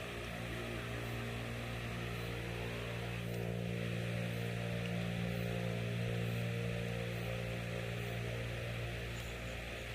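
A steady low hum with evenly spaced overtones, swelling a little in the middle.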